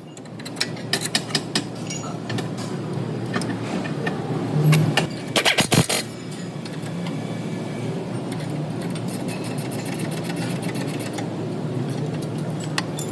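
Car noise: a steady low hum with scattered sharp clicks and a burst of loud knocks and rattles about five to six seconds in.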